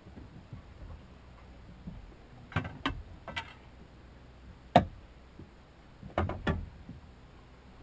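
Scattered knocks and clatters in a small boat as an angler shifts about fighting a fish on a bent spinning rod, with the sharpest knock just before halfway and a pair of bumps near the end.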